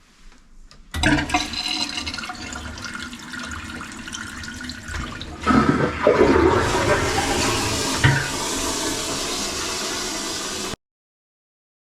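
A toilet flushing: rushing water that swells louder about halfway through and then cuts off suddenly.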